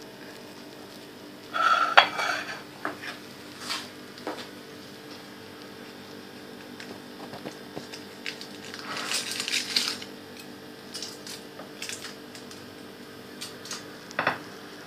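A ceramic plate clinking and scraping against a countertop, with cutlery clinks: a cluster of knocks about two seconds in, a few single clicks, a longer scrape about nine seconds in and a sharp clink near the end, over a faint steady hum.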